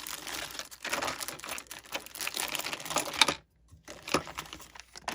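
Hands handling small hard parts and tools on a tabletop: a quick, irregular flurry of clicks and rustles that stops abruptly a little past three seconds in, followed by a few scattered clicks.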